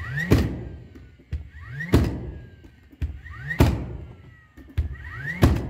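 DeWalt cordless framing nailer driving nails into a plywood subfloor, four shots about every second and a half. Before each shot there is a light click and a short rising whir as the tool's motor spins up, then a sharp bang, and the whir falls away after each shot.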